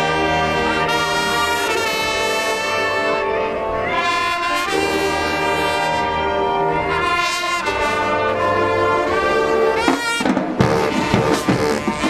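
High school marching band's brass section holding loud, long chords that change every second or two. About ten seconds in, the drumline comes in with fast, hard drum strokes under the horns.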